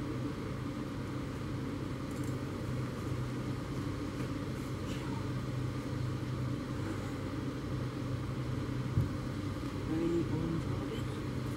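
A steady low mechanical hum, like an engine running, with a single sharp knock about nine seconds in.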